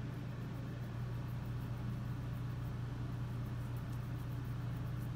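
Steady low hum with a faint even hiss underneath, unchanging throughout.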